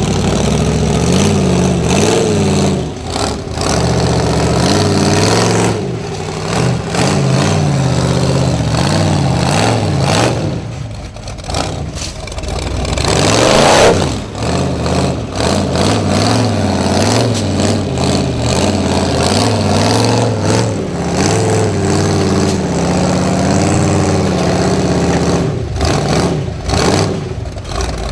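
Rock bouncer buggy's engine revving in repeated surges as it claws up a rock ledge. The pitch rises and falls throughout, dips briefly, then peaks in the loudest surge about halfway through as the tyres spin on the rock.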